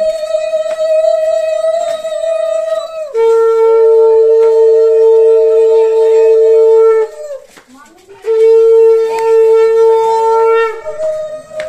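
Conch shell (shankha) blown in long held blasts at two different pitches, a higher blast, then two lower ones with a pause of about a second between them, and the higher tone again near the end. Conch blowing marks the ritual of a Bengali wedding.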